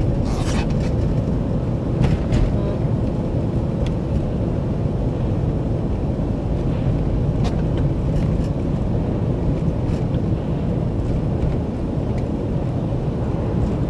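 Steady low rumble of vehicle engine and tyres driving on a snow-covered road behind a snowplow truck, with a few faint ticks.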